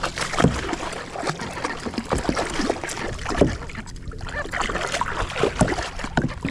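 Water splashing and sloshing around a fishing kayak in short, irregular splashes.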